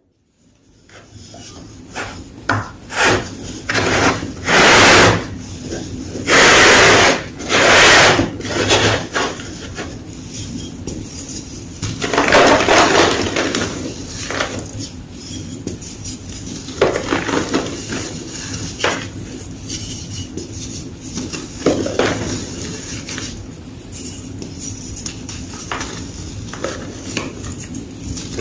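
A block of gym chalk crunching and crumbling in a string of irregular, dry crunches. Several long, loud crunches stand out, about five, seven, eight and twelve seconds in, with lighter crackling between them.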